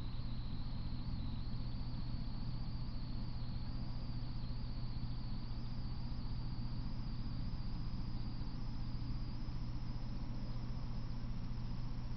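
Steady electrical hum and hiss with a faint high-pitched whine that slowly rises in pitch: a trail camera's own electronic noise, with no train passing.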